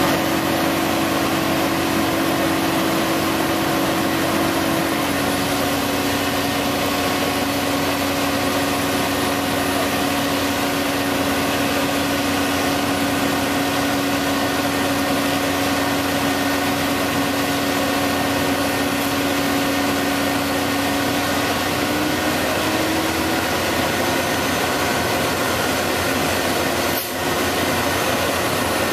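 Heavy diesel engines of a concrete boom pump truck and a ready-mix truck running steadily, with a steady whine that shifts slightly in pitch a little after twenty seconds.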